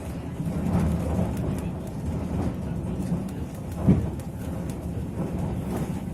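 Narrow-gauge passenger train running: a steady low rumble of the cars and wheels on the track, mixed with wind noise and faint clicks, and one sharp knock about four seconds in.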